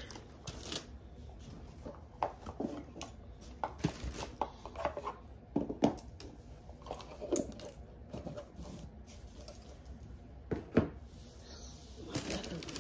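Hands handling small objects, with irregular light clicks, taps and rustles and one sharper knock near the end.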